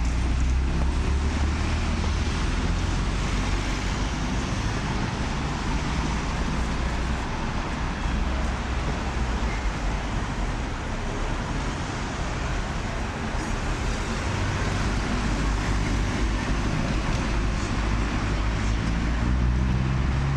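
Street traffic: a truck and cars driving past, with a low engine rumble over a steady wash of road noise. The rumble is strongest at the start and swells again near the end as another car goes by.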